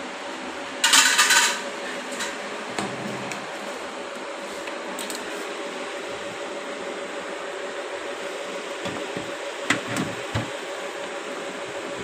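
A steady hum, broken about a second in by a loud, brief rustling scrape and, near the end, by a few light knocks.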